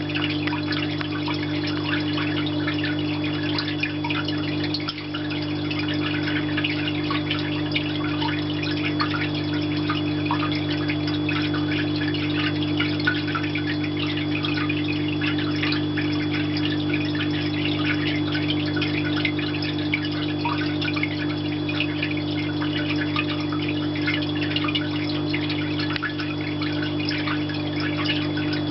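Artificial rain in a frog rain chamber: many small drops pattering and splashing, over the steady hum of the water pump that recirculates the water.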